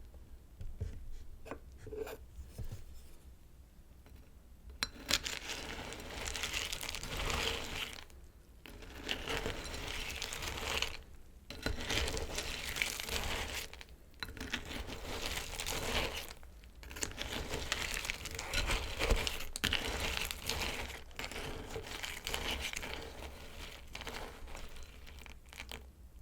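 Crinkly plastic cereal packaging being handled and torn open, in repeated stretches of a few seconds with short pauses, after a few light clicks at the start.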